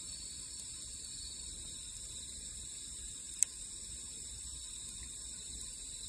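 A steady, high-pitched chorus of singing insects such as crickets, with a few faint ticks and one sharp crackle from the burning wood in the fire pit about three and a half seconds in.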